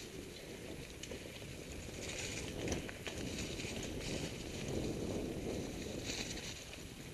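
Mountain bike ridden over a dry, leaf-covered forest trail, heard from a helmet camera: tyres crunching over leaves and dirt, with a few sharp knocks and rattles from the bike.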